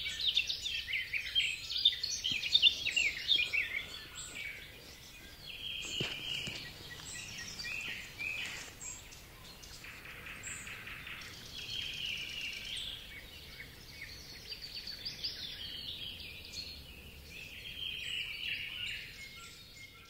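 Forest birdsong: small birds chirping and singing in quick high notes, busiest and loudest in the first few seconds, then scattered phrases, over a faint outdoor hush. A single brief knock about six seconds in.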